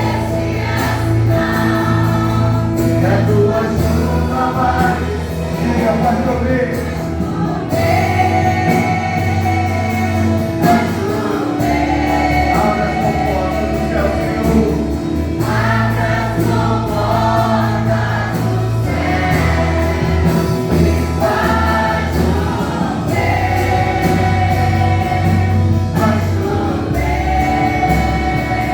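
Gospel worship song: a choir of singers over a band with a steady bass line.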